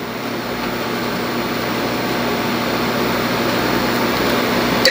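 Steady rushing noise with a faint low hum from the cooktop, where a large pot is heating, slowly growing louder; a small clink near the end.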